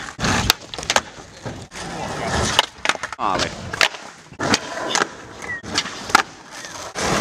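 Skateboards on flat asphalt: wheels rolling, then many sharp clacks of tails popping and boards landing and hitting the ground as flip tricks are tried.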